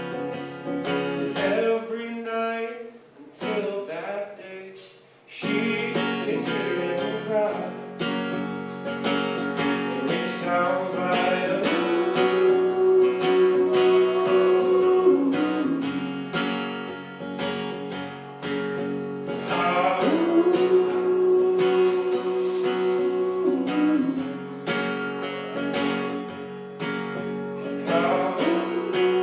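Acoustic guitar strummed steadily under a sung melody. Three times a voice slides up into a long held note.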